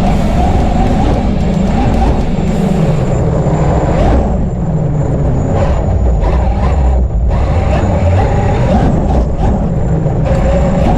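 Traxxas X-Maxx 8S electric RC monster truck driving on sand on paddle tires, heard from its onboard camera: the drivetrain whine wavering with the throttle over a heavy rumble of wind and ground noise. The noise thins for a few seconds near the middle, then picks up again.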